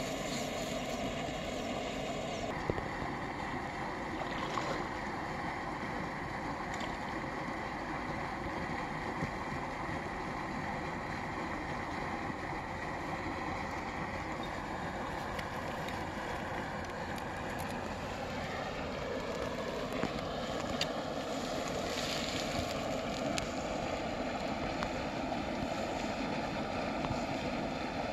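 Wind on the microphone with a distant engine humming steadily, its pitch rising slightly about two-thirds of the way in. A few faint clicks sound over it.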